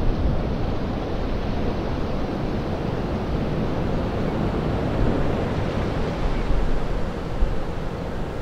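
Tidewater glacier calving: a steady, low rumbling wash of falling ice and churning water as a section of the ice face collapses into the sea.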